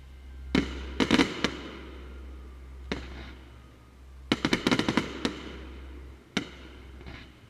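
Fireworks display: aerial shells going off in single sharp bangs and dense clusters of rapid crackling reports, one cluster about a second in and a longer one about four to five seconds in. A steady low hum runs underneath.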